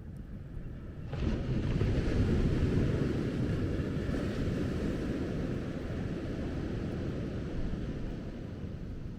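A wave breaking on the shore about a second in, its wash surging and then slowly fading, over a low rumble of wind on the microphone.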